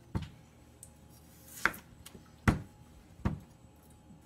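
Kitchen knife cutting through a nagaimo (Chinese yam) onto a plastic cutting board: a few sharp knocks a little under a second apart.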